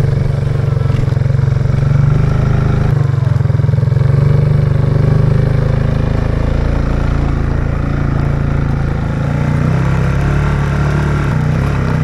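Quad bike engine running steadily under way, heard close up from a camera on the bike's front rack. Its level dips slightly about nine seconds in.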